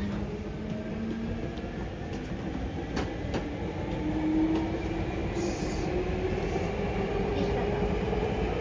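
Hankyu 5300 series resistance-controlled electric train heard from inside the car, its traction motors whining with a tone that rises steadily in pitch as the train accelerates, over a steady running rumble. Two sharp clicks of wheels over rail joints come about three seconds in.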